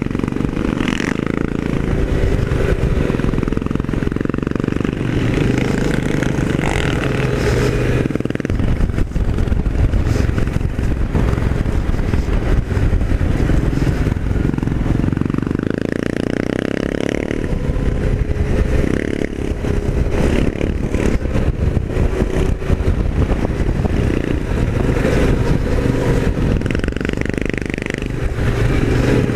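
Off-road motorcycle engine running under way, its note rising and falling with the throttle.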